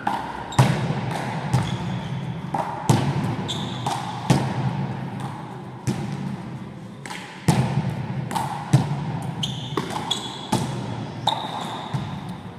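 One-wall handball rally: the ball is struck by hand and slaps off the wall and floor in sharp, echoing smacks about once a second. Sports shoes squeak briefly on the hall floor several times, mostly in the second half.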